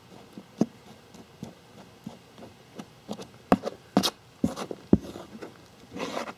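A small hand trowel digging and scraping through crumbly beetle-larva rearing soil, with irregular scrapes and sharp clicks that come faster and louder in the second half. Near the end a hand pushes through the soil with a longer rustle.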